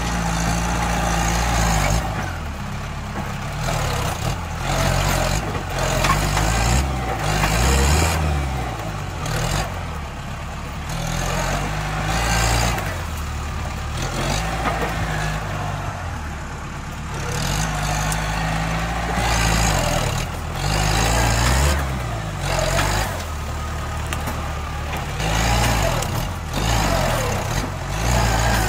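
Kubota L4704 tractor's diesel engine working under load, its speed rising and falling again and again as the front blade pushes into brush and soil, with scattered cracks and scrapes throughout.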